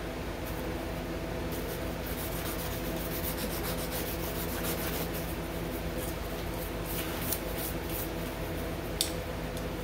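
Hand sanding: sandpaper rubbing in short, repeated strokes against the outer face of a chromatic harmonica's mouthpiece slider as it is being shaped. There is a single sharp click about nine seconds in.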